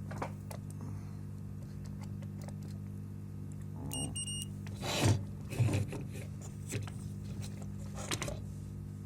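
Two short high beeps from a multimeter's continuity tester about four seconds in, with scattered clicks and knocks of handling over a steady low electrical hum.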